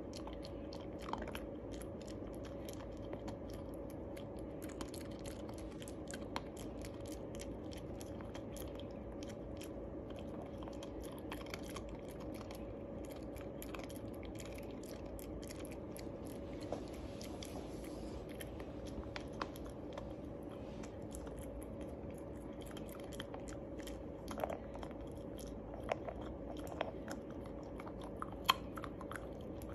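Shiba Inu puppy chewing and crunching a Milk-Bone dog biscuit, with scattered crisp crunches that come more often near the end, over a steady background hum.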